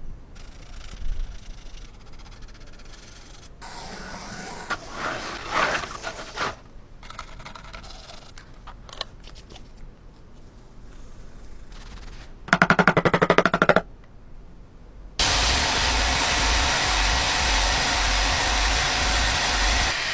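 Tool work on rusty metal. Scraping and rubbing for a few seconds comes first. Near the middle there is a short rapid rattling burst, and from about three quarters of the way in a steady, loud, rushing noise runs on.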